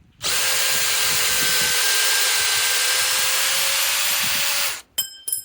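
DeWalt DCD805 brushless cordless drill running free at full trigger for about four and a half seconds, with a steady whine that rises slightly in pitch, then cutting off. A few sharp plastic clicks follow near the end.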